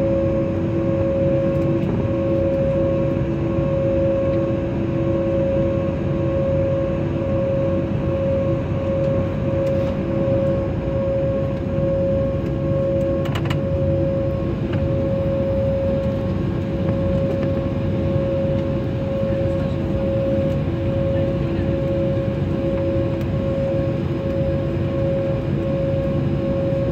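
Steady drone inside a jet airliner's cabin at the gate, an even rumble with two steady whining tones over it and a couple of faint clicks.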